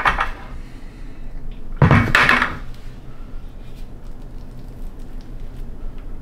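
A plastic bucket of mixed floor leveler is slid and set down with a scraping knock about two seconds in. Faint light scraping and small clicks follow as the leveler is worked into the floor gap with a hand tool.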